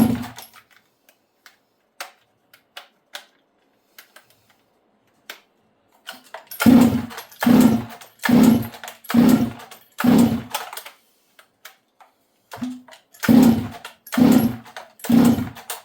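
Stihl 064 two-stroke chainsaw being pulled over on its recoil starter without firing: a few faint clicks, then six quick pulls in a row, a short pause and three more, each a brief whirring crank. It won't catch even with fuel sprayed into the carburetor, a no-start the owner suspects comes from a bad spark plug boot.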